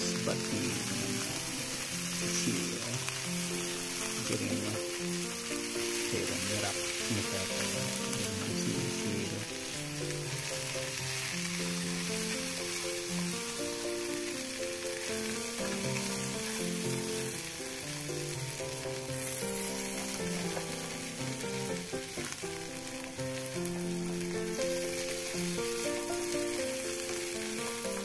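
Sliced jering (djenkol) beans sizzling as they fry in a non-stick wok, turned now and then with a silicone spatula, with background music underneath.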